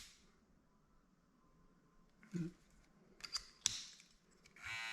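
A few light clicks and a soft knock as a plastic clipper guard is handled and fitted onto electric hair clippers, then the clippers switch on near the end with a steady buzz to test the guard for rattle.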